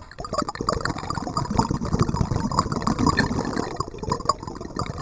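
Water splashing and sloshing around a kayak in an irregular, continuous patter.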